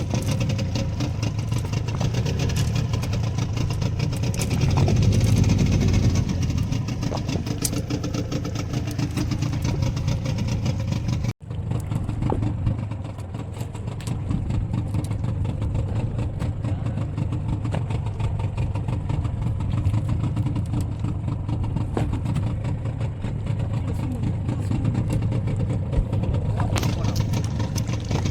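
Fishing boat's engine running steadily at low revs. About eleven seconds in the sound cuts out for an instant and comes back with less treble.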